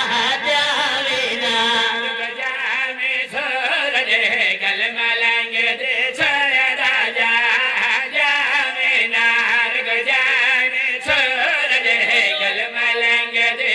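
A qaseeda (devotional poem) sung by a boy's voice with several men singing along, amplified through microphones, the voices ornamented and wavering in pitch over a steady held drone note.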